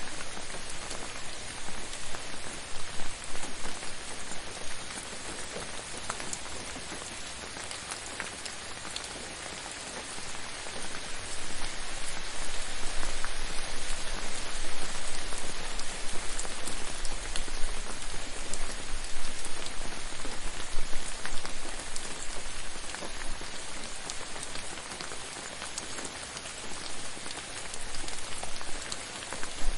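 Steady gentle rain falling, a dense even hiss with many individual drops pattering on a surface, swelling a little louder and easing off again by turns.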